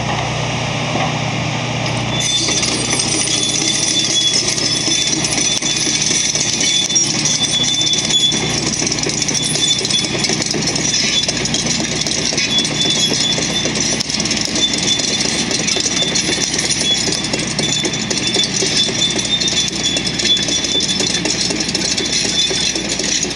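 Tracked excavator driving on its steel tracks: over the diesel engine, a dense metallic clatter with an on-and-off high squeal starts about two seconds in and keeps on.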